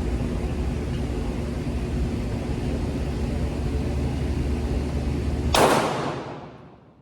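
A steady low rumble with a hum, then a single loud 9 mm shot from a Glock 19 Gen 5 pistol about five and a half seconds in, ringing briefly before the sound fades away.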